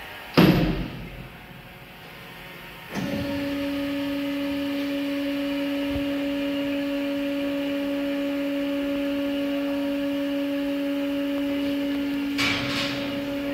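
Laska ME 500 industrial mixer: a loud knock about half a second in, then from about three seconds its electric drive runs with a steady, even-pitched hum. A brief rush of noise comes near the end, just before the hum stops.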